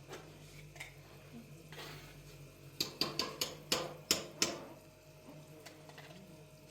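Dishes and utensils clinking and knocking: a quick run of sharp clinks about three seconds in, over a faint steady hum.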